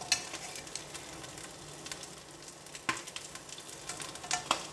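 Steady, faint sizzle of saba mackerel fillets grilling under a lid. A few light clicks of a plastic measuring spoon against a glass sauce bottle and pan cut through it: one at the start, one about three seconds in, and two close together near the end.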